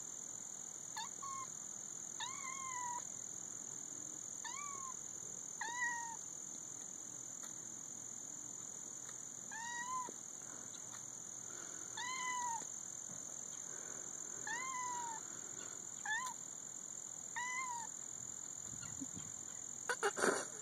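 Kitten meowing, about nine short calls each rising then falling in pitch, spaced one to four seconds apart.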